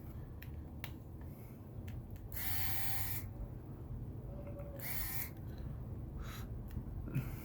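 Small screws being removed from inside an iPhone 8: light clicks of tool on metal, with two brief whirring bursts from a small tool, the first about two and a half seconds in and a shorter one about five seconds in.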